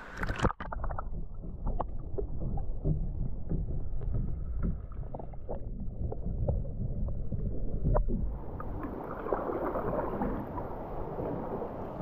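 Action camera plunged underwater with a splash: the sound turns muffled, a low watery rumble with scattered small clicks and ticks. About eight seconds in it comes back up into the air, and the open hiss of water and wind returns.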